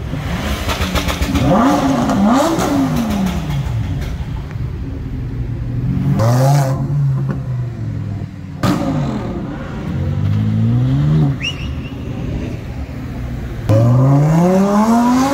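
Cars' loud exhausts revving and accelerating hard, one after another. There are quick rev blips rising and falling in pitch, then a loud, climbing run up through the revs near the end.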